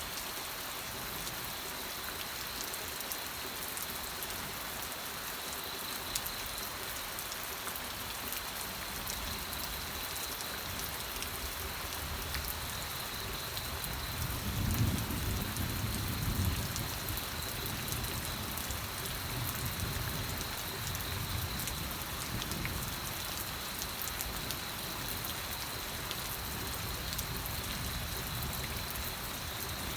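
Steady rain falling on surfaces, an even hiss of many drops, with a low rumble of thunder building about halfway through.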